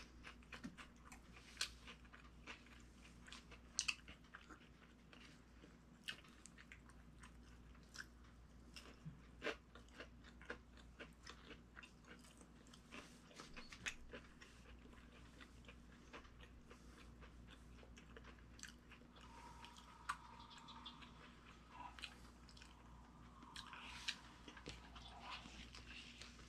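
Close-miked chewing of a chicken sandwich: scattered soft, wet mouth clicks and small crunches, all quiet.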